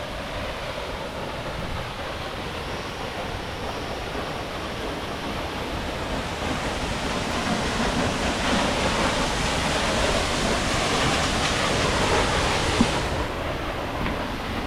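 Waterfall, a steady rush of falling water that swells and grows brighter from about six seconds in, then its hiss drops suddenly near the end.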